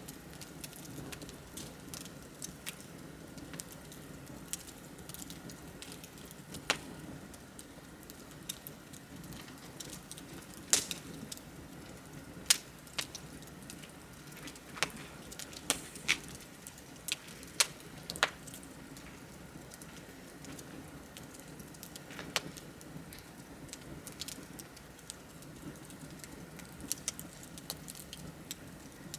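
Wood fire crackling, with irregular sharp pops, several louder ones in the middle, over a steady low hiss of burning.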